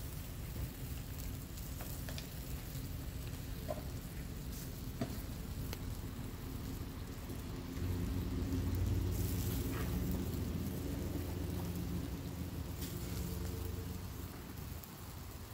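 Kebabs sizzling on a charcoal grill, with scattered small pops and crackles from the coals. A low steady hum runs underneath and gets louder for a few seconds about halfway through.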